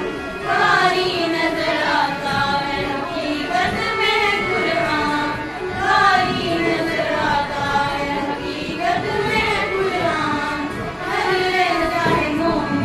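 Group of schoolgirls singing an Urdu nazm together, in long, gliding sung phrases.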